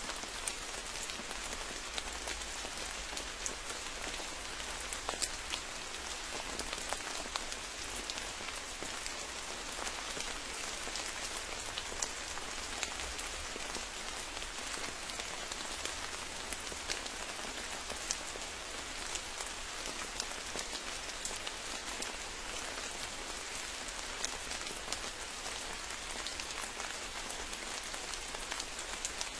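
Steady rain falling in a forest, with scattered single drops ticking out sharply above the even hiss.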